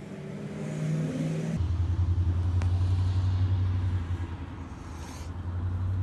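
A motor vehicle's engine running, a steady low drone; the sound changes abruptly about a second and a half in and swells again near the end.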